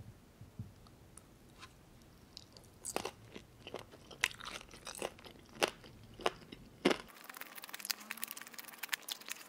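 A person chewing spicy chicken feet (buldakbal) close to the microphone: scattered, irregular sharp crunching and wet chewing clicks, with a quicker run of small clicks in the last couple of seconds.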